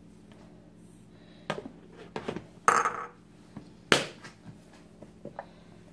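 A few light knocks and clicks of kitchen handling, with the sharpest one about four seconds in as a measuring cup is set down on a granite countertop.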